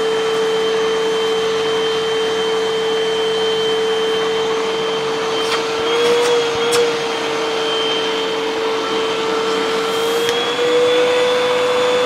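Hoover upright vacuum cleaner running with a steady high whine. Its pitch rises slightly about six seconds in and again near ten seconds, with a few clicks. The motor is running against a restriction, which the owner takes for another clog of wood shavings further inside the vacuum.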